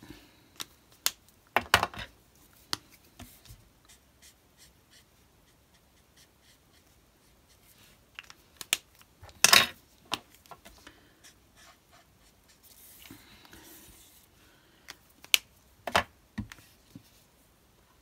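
Scattered clicks and taps of an Ohuhu marker and a small die-cut card piece handled on a craft mat, with sharper knocks about two seconds in, near the middle and near the end, and a brief soft rustle between the last two.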